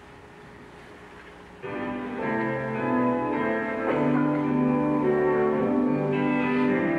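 Instrumental introduction to a choir song, starting abruptly about a second and a half in after low hiss: sustained orchestral-sounding chords over a steady bass line.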